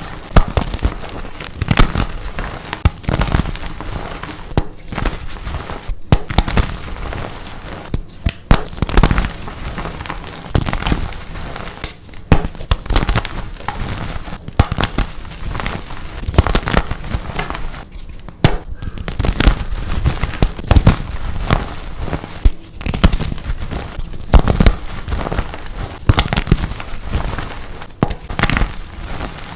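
Blocks of dyed gym chalk being crushed and crumbled, giving a dense, irregular run of crisp crunches and crackles.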